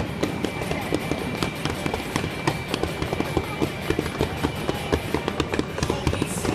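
Fireworks crackling, with many sharp pops coming several times a second in an irregular stream.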